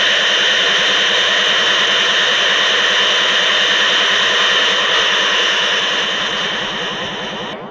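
Science-fiction machine sound effect: a steady hissing roar with a thin, high whine held through it. It fades over the last second or two.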